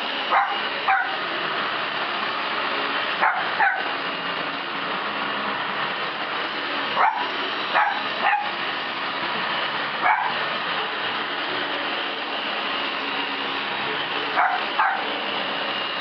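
Cavalier King Charles spaniels barking at an upright vacuum cleaner, about ten sharp barks in pairs and threes, spaced a few seconds apart. Under them the vacuum's motor runs with a steady whir.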